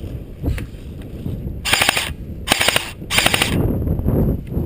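Airsoft gun firing three short rapid-fire bursts, about two, two and a half and three seconds in.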